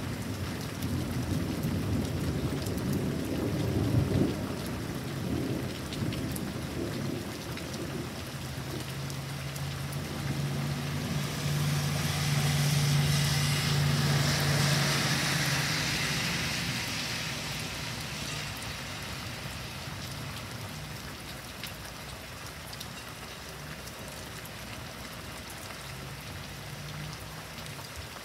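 Steady heavy rain with a rolling thunder rumble over the first several seconds, strongest about four seconds in. Midway a pickup truck passes on the wet road: its engine hum and tyre hiss swell and fade. The rain then eases to a softer patter.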